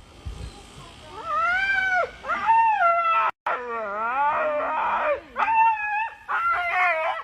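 A dog whining and howling in a series of about five drawn-out, high, wavering cries: the distress of a dog left behind by its owner.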